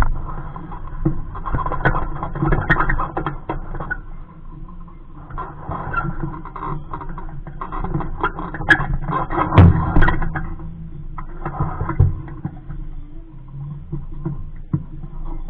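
Water lapping and slapping against the fibreglass hull of a small sailboat, in irregular patches, mixed with scattered clicks and knocks from lines and fittings; the loudest splash and knock comes about ten seconds in.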